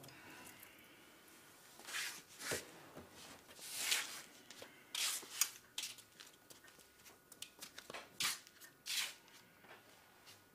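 Footsteps scuffing across a floor with the rustle of clothing: a scatter of short, soft scuffs and swishes.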